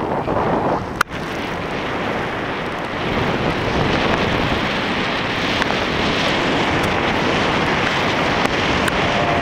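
Wind noise from the airflow of a paraglider in flight, buffeting the camera microphone steadily and loudly, with one sharp click about a second in.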